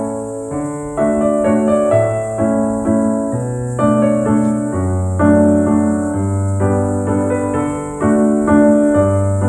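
Background music: a piano piece with a steady beat, melody notes over a bass line.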